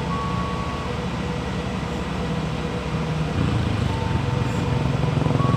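Diesel locomotive engine running with a low, steady pulsing rumble that grows louder a little past halfway.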